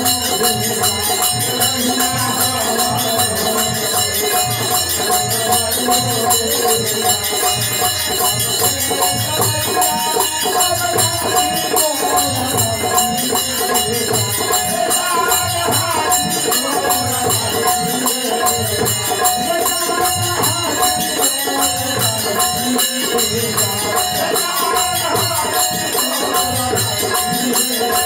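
Live devotional folk music: a steady hand-drum beat under continuous jingling metal percussion, with an electronic keyboard.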